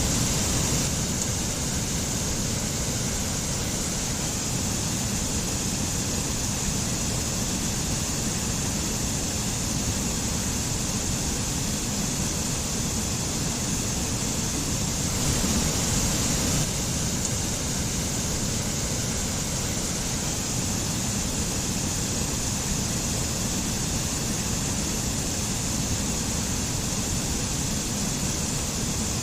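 Mountain stream with a small waterfall, water rushing steadily with a constant hiss.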